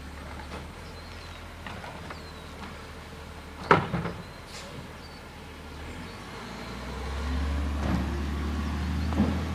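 Garbage truck working down the street, a steady low rumble that swells louder in the last few seconds. A single sharp bang about four seconds in.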